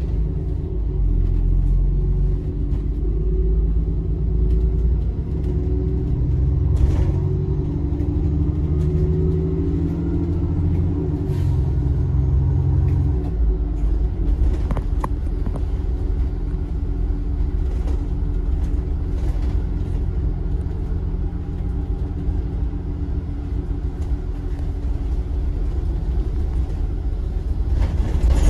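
Bus engine and road rumble heard from inside a moving double-decker bus. The engine note shifts during the first half and drops to a lower note about halfway through, with occasional rattles from the body.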